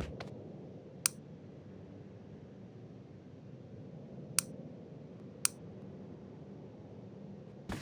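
A handful of sharp, isolated clicks, a second or more apart, over a faint steady low hum.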